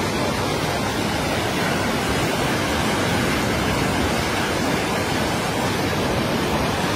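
Floodwater surging down a street as a fast brown torrent, a steady rushing roar of water.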